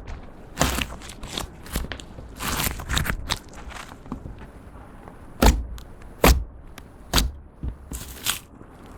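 Clear slime being squished, folded and stretched by hand, with irregular sticky crackles and pops of trapped air. Two louder pops come a little past the middle.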